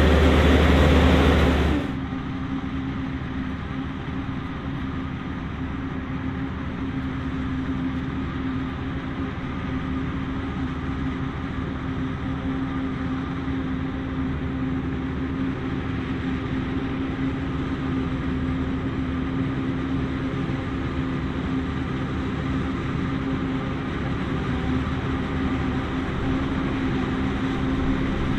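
John Deere 9800i self-propelled forage harvester chopping maize, its engine and chopper running under load in a steady heavy drone. It is loud and close for the first two seconds, then settles to a more distant steady hum, joined by the tractor pulling the silage wagon alongside.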